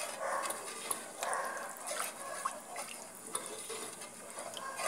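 Wooden spoon stirring a thin béchamel of milk over a flour-and-margarine roux in a large pot, the liquid swishing in irregular strokes.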